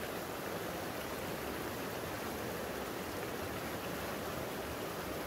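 Creek water running steadily, an even rushing sound with no breaks.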